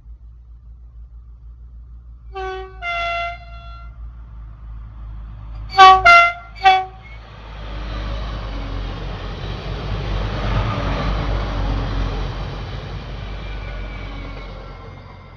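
Train horn: two short toots, then three much louder blasts in quick succession, the driver sounding the horn on approach. A double-deck passenger train then passes close by, its wheels-on-rail rumble building, peaking and fading away.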